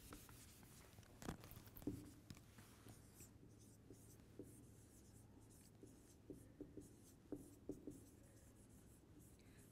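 Faint marker strokes on a whiteboard: soft scratching and squeaking of the felt tip, with scattered light taps as strokes begin.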